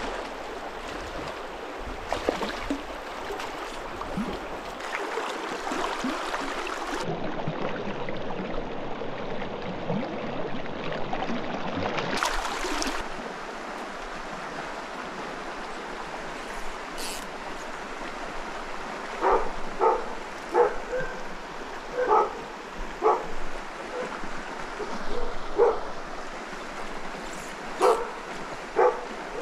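A flowing mountain stream runs steadily over rocks. About two-thirds of the way in, a dog starts barking: a string of short, single barks, about a dozen, spaced irregularly a second or so apart, and these are the loudest sound.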